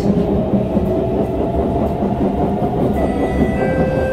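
SMRT C151 metro train running, heard from inside the carriage: a steady rumble of wheels on rail, with steady motor whine tones coming in about three seconds in.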